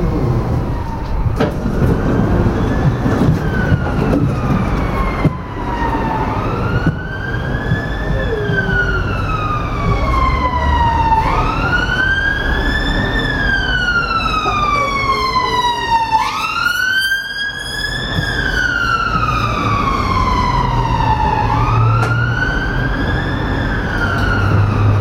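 Emergency vehicle siren wailing, its pitch rising quickly and falling more slowly in about five cycles, roughly one every five seconds, over a steady low rumble.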